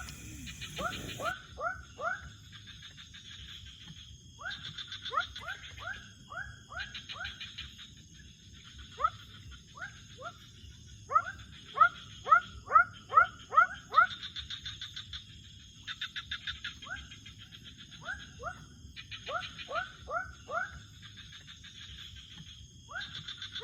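Night-time wild animal chorus: runs of four to eight short rising chirps, the loudest run about halfway through, alternating with pulsed trilling calls over a steady high-pitched whine.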